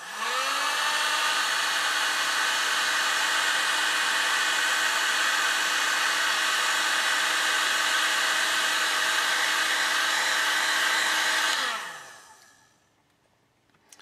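An old paint-stripper heat gun switched on to shrink heat-shrink tubing. Its fan motor whines up to speed within the first second, then runs steadily with a whine over a rush of air for about eleven seconds before it is switched off and winds down.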